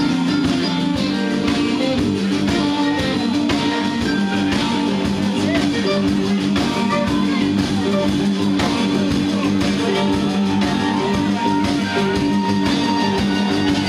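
Live rock band playing, with electric guitar to the fore over a drum kit.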